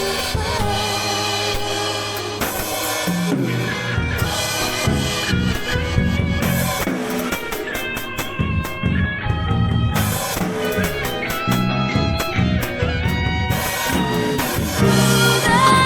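Drum kit with a Steely B10 cymbal set played along to a recorded pop song with guitar, drum hits and cymbals running steadily over the backing track.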